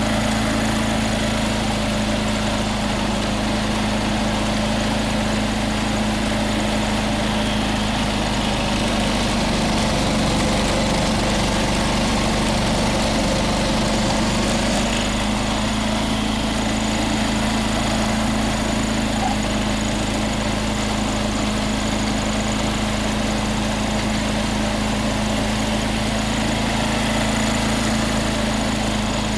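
John Deere 214 lawn tractor's single-cylinder engine running steadily under load, driving a 37A snow thrower's auger and fan as it throws snow.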